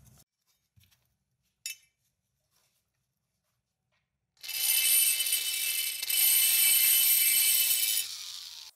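A high-speed rotary tool with a carbide burr grinding the aluminium transfer port of an MBK 51 moped crankcase, enlarging it to match a larger racing cylinder. It starts about four and a half seconds in with a steady high whine and stops shortly before the end. A single sharp click sounds a little before two seconds in.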